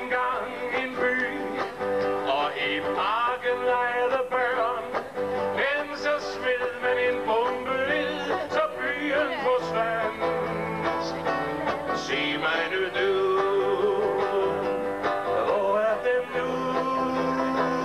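A man singing a slow ballad to acoustic guitar, his voice wavering and gliding between long held notes.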